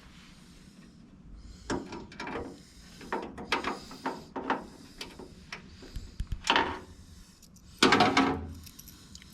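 Irregular knocks, clicks and clatter of tools and hardware being handled while working on a computer case, with the two loudest knocks about six and a half and eight seconds in.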